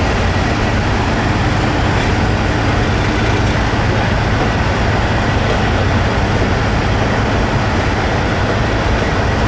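Diesel semi-truck engine running steadily as the tractor-trailer backs up slowly, a constant low hum that stays level throughout.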